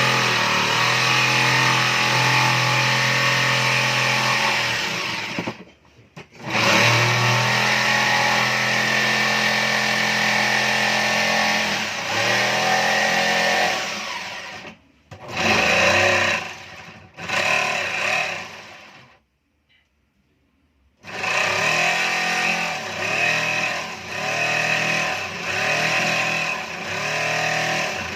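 Electric power tool motor running hard, its pitch dipping and recovering again and again as it bites under load, in several stretches broken by short gaps.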